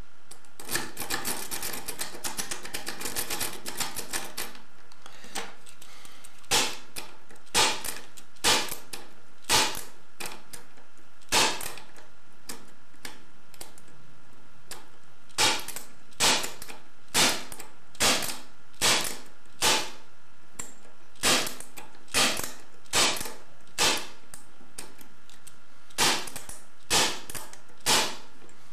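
Metal clicking and tapping at an Asec pin-tumbler lock cylinder during lock bumping. First come about four seconds of fast, dense clicking, then sharp single taps, about one a second in short runs with brief pauses.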